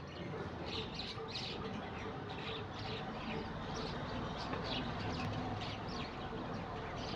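Birds chirping: many short calls repeating throughout, over a steady background noise.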